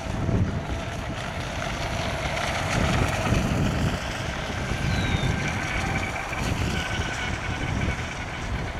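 Wind buffeting the microphone in gusts, over the faint steady whine of radio-controlled model boat motors on the water.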